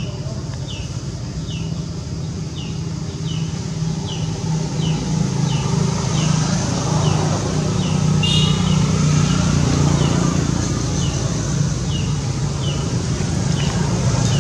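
A steady low motor hum, like an engine running nearby. Over it, a short high falling chirp repeats at a steady pace, about three every two seconds, with a brief louder high call about eight seconds in.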